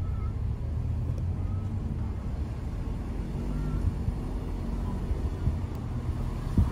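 Steady low rumble of a car driving along a road: engine and tyre noise, with a brief knock near the end.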